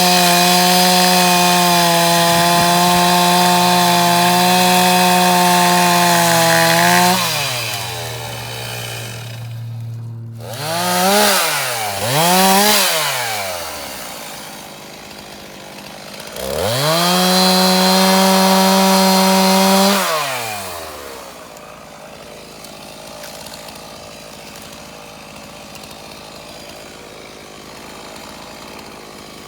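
Stihl chainsaw running at full throttle at a steady pitch, dropping to idle about seven seconds in, blipped twice, then run up to full throttle again for a few seconds before winding down.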